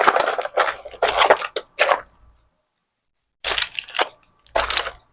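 Irregular clattering and rattling of small hard objects, such as repair tools and parts, being handled on a workbench. There are several short bursts, with a break of about a second in the middle.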